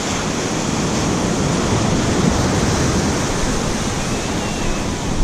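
Surf breaking and washing up onto a beach: a steady rush of noise.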